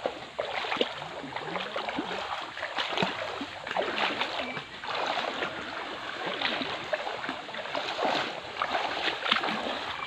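Several people wading through a shallow creek, their feet splashing and sloshing in the water with each step in an irregular rhythm.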